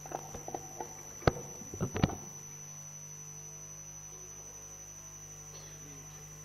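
Steady electrical mains hum on the assembly hall's sound feed, with a few soft clicks and two sharp knocks, about one and two seconds in.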